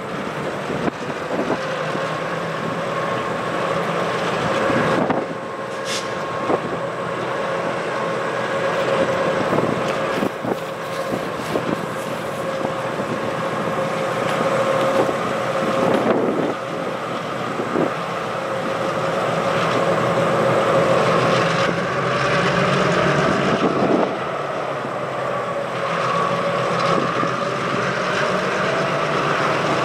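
EMD switcher diesel locomotives working as a long hopper train backs slowly, a steady whine rising a little in pitch near the end, with scattered knocks from the train.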